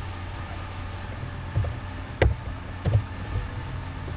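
Three sharp computer keyboard key clicks, about 1.6, 2.25 and 2.9 seconds in, the middle one the loudest, over a steady low background hum.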